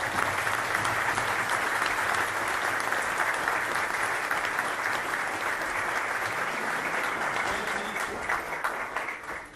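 Audience applauding: many people clapping together in a large room, steady and then dying away near the end.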